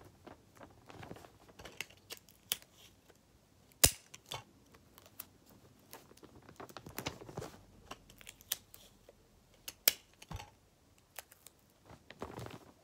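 Clear sticky tape being pulled, torn and pressed onto a paper squishy: crinkling rustles of paper and tape with scattered sharp clicks, the loudest about four seconds in.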